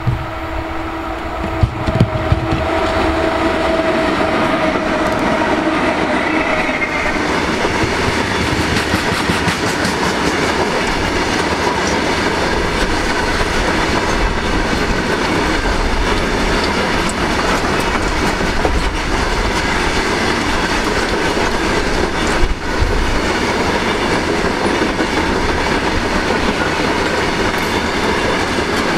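Freight train of covered box wagons passing close by behind twin WAG-5 electric locomotives: a steady tone in the first few seconds fades as the engines go by, then a constant rumble and clickety-clack of wagon wheels over the rail joints, with one sharper clank about two-thirds of the way through.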